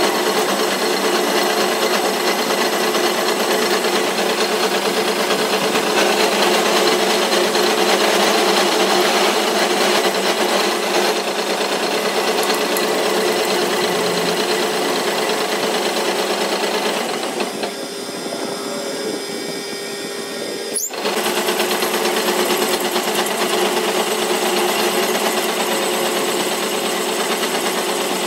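Metal lathe running as a cutting tool turns down a steel trolley axle tube: a steady machining noise over the hum of the machine. It turns quieter for a few seconds past the middle, then breaks off sharply and picks up again.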